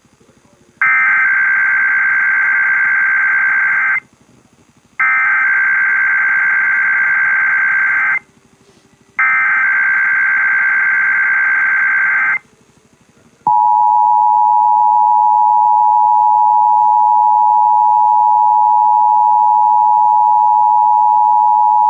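Emergency Alert System SAME header: three bursts of digital data tones, each about three seconds long with a one-second gap, followed by the two-tone EAS attention signal held steady for about nine seconds before it cuts off. Together they open an EAS alert, here a Required Weekly Test.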